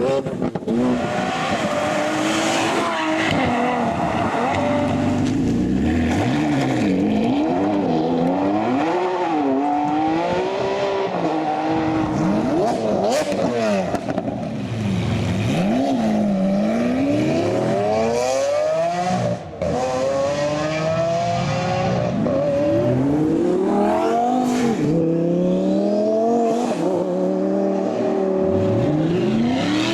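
High-performance car engines revving and accelerating hard, their pitch climbing and falling again and again as they rev and shift, with a short break about two-thirds of the way through.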